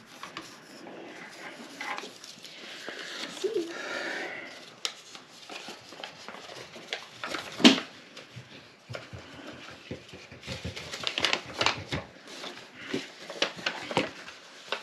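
Paper being handled and folded on a craft table: rustling and scraping, with one sharp knock about halfway through and a run of quick taps and clicks near the end.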